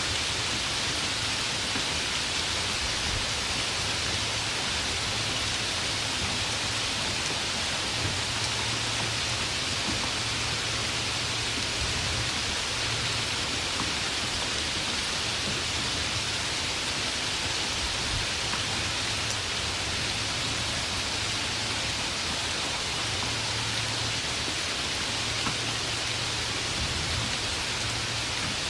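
Steady rain falling, an even hiss of rain with no thunder and no change in strength.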